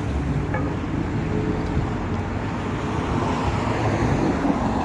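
Road traffic on a city street: a steady rumble of engines and tyres, growing louder in the second half as a vehicle comes closer.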